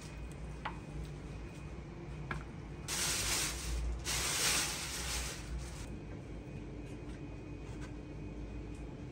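Steady low hum of kitchen background with a few light clicks, and two bursts of hiss, each a second or so long, about three and four seconds in.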